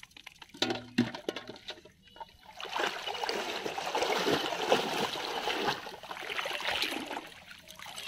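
Shallow water splashing and sloshing as a person wades quickly through a flooded, weed-grown field. After a few short taps, the splashing starts about two and a half seconds in and runs for about five seconds, fading near the end.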